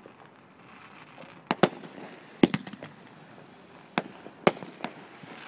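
Fireworks going off: about five sharp bangs, two close together about 1.5 s in, then singles, a couple of them trailed by short crackling.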